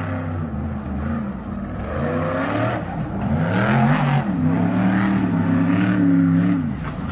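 Off-road race truck's engine revving hard, its pitch rising and falling several times as the throttle is worked, louder in the second half.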